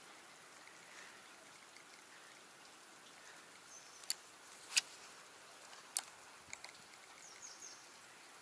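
Faint steady outdoor ambience with a soft hiss, broken by four sharp clicks between about four and six and a half seconds in, the second of them the loudest. A few faint high chirps come just before the clicks and again near the end.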